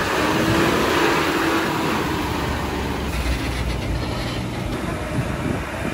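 Heavy vehicle engines running, with a steady rumble and mechanical noise that is a little louder in the first two seconds.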